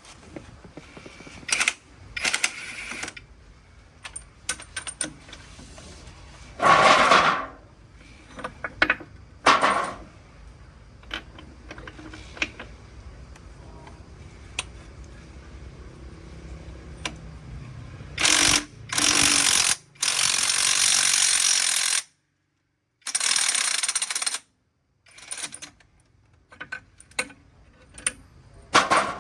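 Metal tool work on a heavy truck wheel: scattered clanks and knocks, with several loud short bursts of hissing, clattering noise in the second half.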